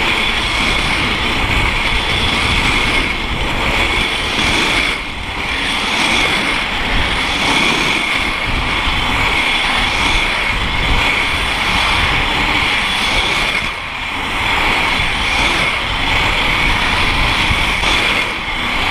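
Inline skate wheels rolling fast on asphalt under heavy wind rush on the microphone: a loud steady roar with a steady high whine running through it, easing off briefly twice.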